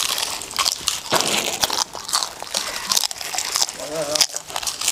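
Several people crunching and biting through crispy papad snacks in quick, irregular crackles, with the crinkle of plastic snack packets.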